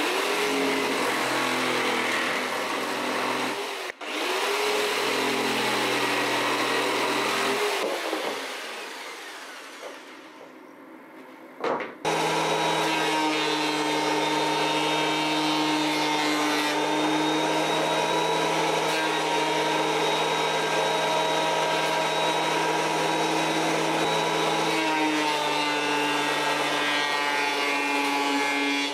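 An electric jigsaw cutting pallet boards, its motor note shifting as the blade works, then fading away. After that, a benchtop thickness planer runs steadily with a high whine, its pitch sagging for a few seconds near the end as it takes a board.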